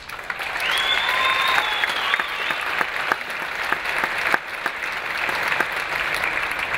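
Audience applauding, a dense patter of many hands clapping. A high whistling tone rings out over the applause for about a second and a half, starting about a second in.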